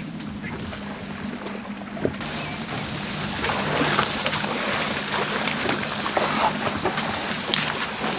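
Tall grass rustling and swishing, with dense small crackles, as safari elephants wade through it. It gets fuller and louder about two seconds in, under a faint steady low hum.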